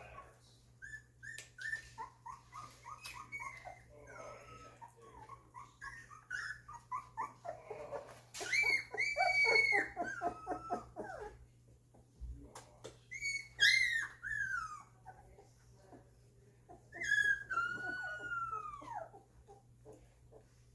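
Two-week-old golden retriever puppies whimpering and squealing: a run of short, high whines, with louder, longer squeals from about eight seconds in, the last one sliding down in pitch.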